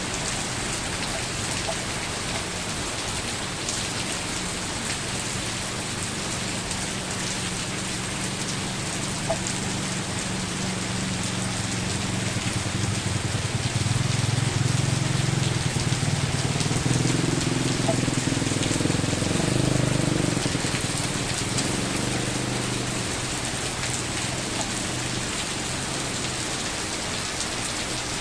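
Steady heavy rain falling. A low rumble swells for several seconds midway and then fades under the rain.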